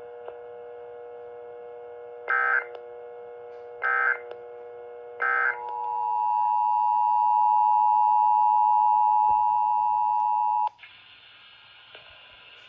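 Three short identical Emergency Alert System data bursts, the end-of-message code, over a steady background buzz. Then the two-tone EAS attention signal comes in about five and a half seconds in, swells, holds for about five seconds and cuts off abruptly, leaving faint hiss.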